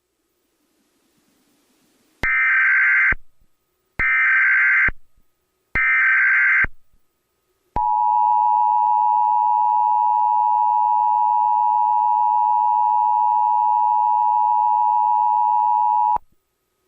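Emergency Alert System test broadcast: three one-second bursts of SAME digital header data, then the EAS attention signal, a steady two-tone 853 and 960 Hz alert held about eight seconds and cut off abruptly.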